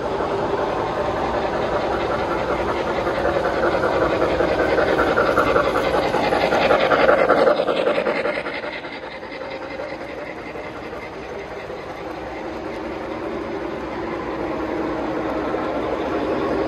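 Three-rail model train running on the layout track, getting louder to a peak about seven seconds in as it passes close, then dropping away quickly and slowly building again.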